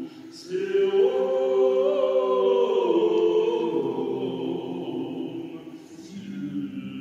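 Small mixed vocal ensemble, soprano down to bass, singing an Orthodox hymn in Greek in sustained chords. A louder chord comes in about half a second in and dies away near six seconds, just before the next phrase begins.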